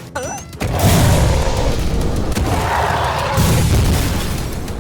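A deep boom about half a second in, followed by a long rumbling, hissing noise that swells again near the end: a cartoon explosion-type sound effect.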